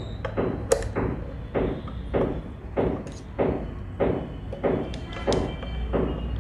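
Old sewing machine's needle-bar mechanism being worked by hand during reassembly: a series of short metal knocks and clicks, roughly two a second, with a faint ringing after each.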